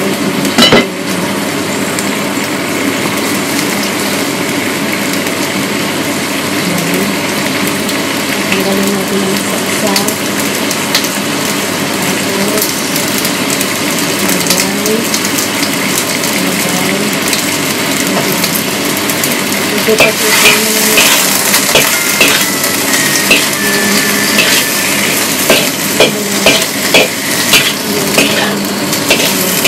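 Food sizzling in a wok over a gas burner, a steady hiss that grows brighter about two-thirds of the way in. Near the end a metal spatula knocks and scrapes against the wok several times as stir-frying begins.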